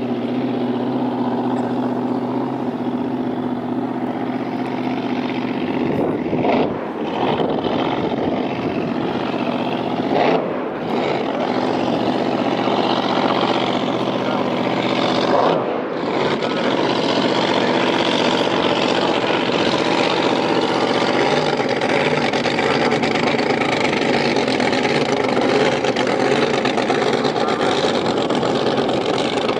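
Supercharged drag boat engine running at a steady pitch as the boat cruises across the water, with brief dips about 6, 10 and 16 seconds in.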